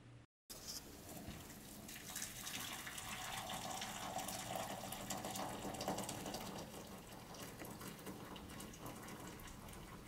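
Hot water pouring steadily from a stainless electric kettle into a glass measuring cup, starting about half a second in.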